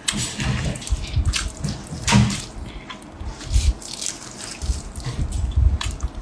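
Sauce-soaked leaf wrapper being peeled off a braised pork-belly parcel by gloved fingers: irregular wet, sticky crackles and clicks with soft low thumps.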